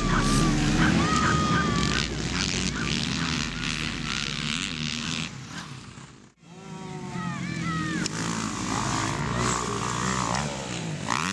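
Motocross bike engines racing past, revving up and down. The sound cuts out almost completely about six seconds in, then a bike revs hard again.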